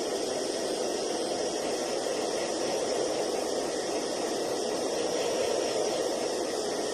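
Hand-held hair dryer blowing steadily, a constant airy hiss, drying a Persian cat's fur after its bath.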